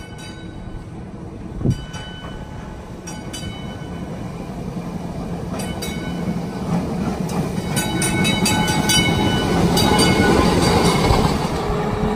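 TECO Line replica Birney streetcar rolling along its track toward the listener, growing steadily louder as it draws near. A quick run of sharp clicks comes about eight seconds in.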